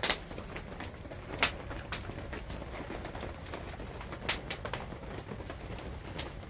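Wood campfire crackling: sharp pops, the loudest right at the start and about four seconds in, over a low steady rumble of the burning fire.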